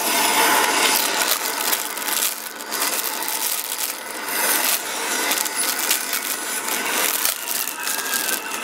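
Clear plastic polybag crinkling and crackling as hands handle it, with the loose plastic building-block pieces inside clicking against each other.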